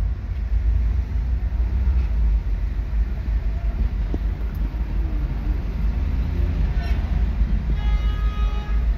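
Steady low rumble of a Mercedes-Benz W124 idling and creeping forward at walking pace, heard from inside the cabin. A short high-pitched electronic tone sounds near the end.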